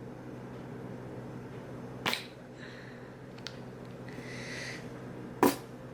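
Mustard squeeze bottle sputtering air as it is squeezed, making farting noises: two sharp spurts, about two seconds in and near the end, with a short hiss between them.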